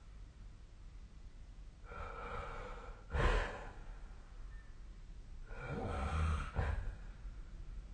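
A sleeping person snoring. A breath draws in and ends in a short, loud snort about three seconds in, and a longer, rumbling snore follows around six seconds in.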